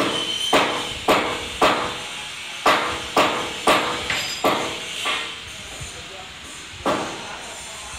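Hammer blows on metal, about eleven sharp strikes at roughly two a second, each with a short ringing tail. The blows pause about five seconds in, and one last strike comes near the end.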